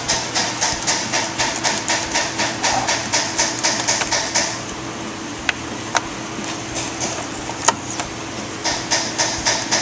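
A rhythmic rasping or knocking, about four strokes a second, stopping for about four seconds in the middle and starting again near the end, over a steady hum. A few sharp clicks fall in the gap, fitting plastic packaging and parts being handled at the bench.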